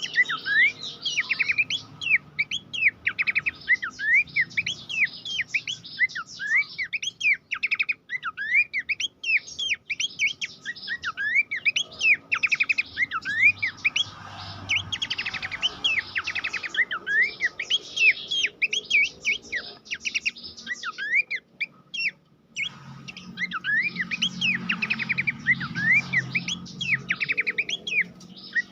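Pelanduk semak babbler singing: a dense, unbroken stream of short whistled notes that sweep up and down, with a brief pause about 22 seconds in.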